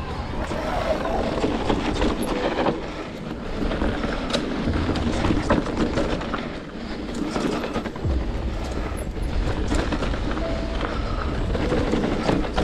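Electric mountain bike riding down a rough trail on Maxxis Assegai MaxxGrip tyres: tyres rolling over dirt and rocks, frequent knocks and rattles from the bike, and wind buffeting the microphone.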